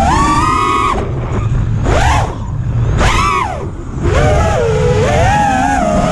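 Brushless motors and propellers of a 5-inch FPV quadcopter whining, the pitch rising and falling with the throttle. It runs high for the first second, drops, gives two short throttle punches about two and three seconds in, then holds a longer wavering run. A low rumble sits underneath.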